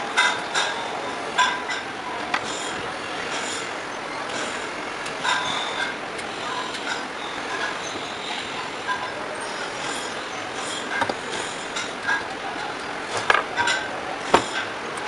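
Irregular metallic clinks and taps of hand tools working on a pedestal fan motor's gearbox and shaft, over a steady background noise.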